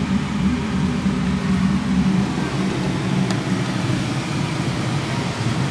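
Steady low mechanical hum of a running motor or fan, with no change in pitch or level.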